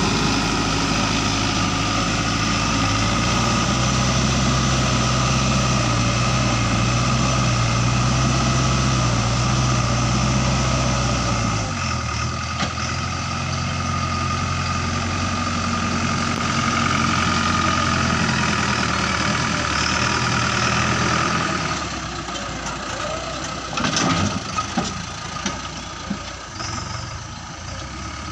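JCB 3DX backhoe loader's diesel engine running steadily. Its note drops and changes about twelve seconds in, and it quietens in the last few seconds, with a few sharp knocks.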